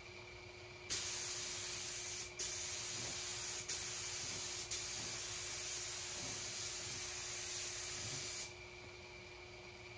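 Gravity-feed air spray gun spraying paint with a steady hiss. It starts about a second in, breaks off briefly three times and restarts, and stops near the end.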